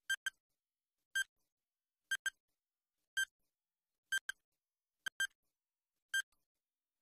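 Quiz countdown timer sound effect: short, high electronic beeps about once a second, some of them doubled in quick pairs, marking off the seconds of the countdown.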